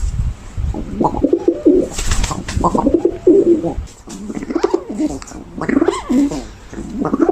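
Pigeon cooing: a run of about five low, throaty, warbling coos in quick succession, with a brief sharp noise about two seconds in.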